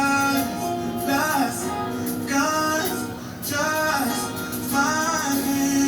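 Music: a soulful R&B song with a singer's voice holding and bending notes over band accompaniment, from a live performance.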